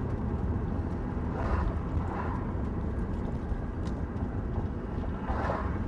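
Steady low road and engine rumble heard from inside a van's cabin while driving, with two brief swells of higher noise, about a second and a half in and near the end.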